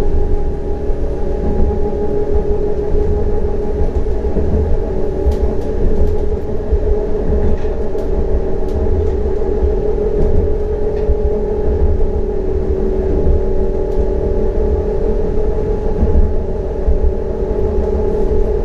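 CAF Urbos 100 tram running at a steady speed: the traction motors whine at an even pitch over a heavy low rumble of wheels on the rails.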